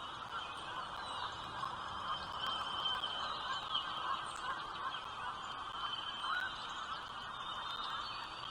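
Birds calling: a continuous, high-pitched chirping with short rising and falling notes, over a steady hiss.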